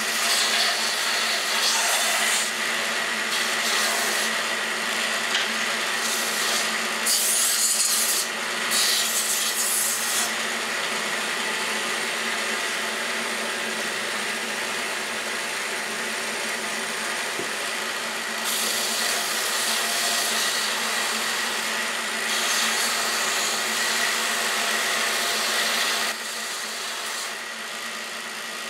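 Band saw running, its blade cutting a curved outline through a thin wooden board. The cutting noise swells and eases as the piece is fed and turned, and it drops off near the end while the saw keeps running.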